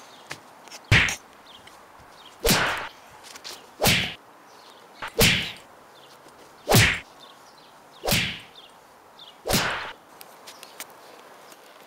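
A dog breathing heavily through its nose close to the microphone: seven loud breaths, about one every second and a half, each a short rush of air.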